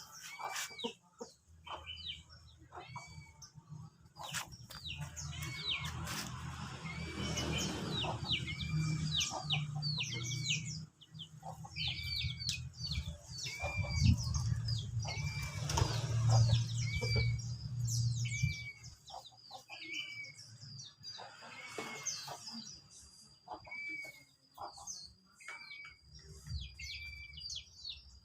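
Small birds calling, one short chirp repeated over and over roughly every second or two, with other chirps in between. A low rumble sits under the calls for the first two-thirds, then drops away.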